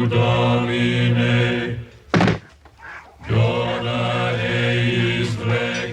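Low male voices chanting a slow hymn in long, held notes. About two seconds in the singing breaks off for a moment, a single sharp strike sounds, and the chant then resumes.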